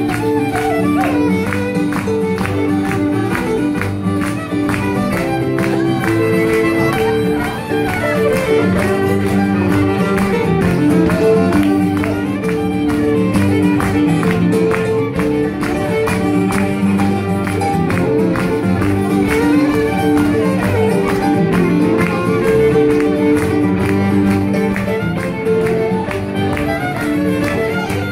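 Live traditional Acadian fiddle music: a fiddle plays a dance tune over strummed guitar accompaniment with a steady beat.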